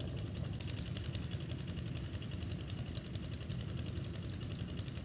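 A steady low engine-like rumble, with a fast, even high ticking over it and a few short high chirps.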